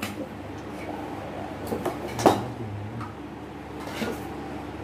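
A few knocks and clinks of kitchen utensils and containers being handled, the loudest about two seconds in, over a steady low hum.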